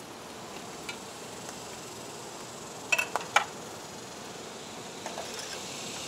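Honey bees buzzing around an opened hive as a steady hiss, with a quick run of sharp clicks and knocks about three seconds in, the loudest sound.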